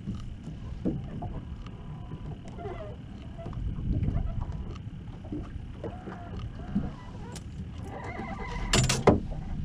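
Wind rumbling on the microphone while a small sea bass is reeled in on a spinning rod, with a few short pitched squeaks. A sharp loud clatter about nine seconds in as the fish is swung aboard.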